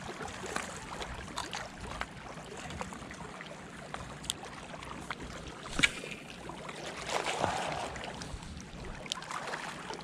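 Small waves lapping and trickling against a rocky shoreline in the wind. A sharp click sounds about six seconds in, as a spinning rod is being cast.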